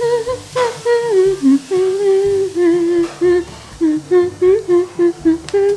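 A woman humming a bouncy tune with her lips closed, in short held notes that step up and down, with lower bass notes changing underneath.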